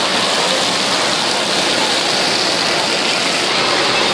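Steady rush of splashing water from the sprays and pouring streams of an indoor waterpark's water play structure, an even hiss without a break.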